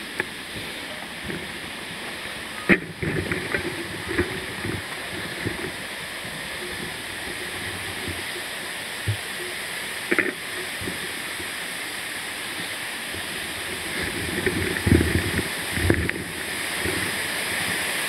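Mountain bike rolling over a rocky, root-strewn forest trail, the bike clattering and knocking over bumps a few times. Behind it a steady rush of running water from a stream and waterfall grows louder near the end.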